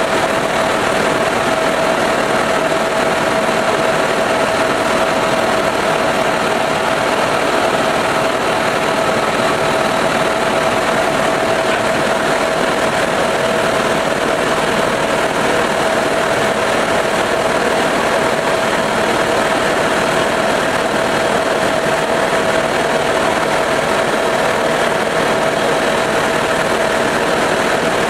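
Helicopter in steady cruising flight: a loud, even drone of engine and rotors with a steady high whine running through it.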